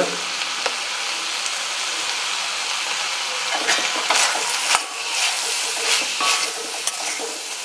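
Chayote cubes sizzling steadily in an iron kadai. From about halfway through, a steel spoon stirs them, scraping and clicking against the pan.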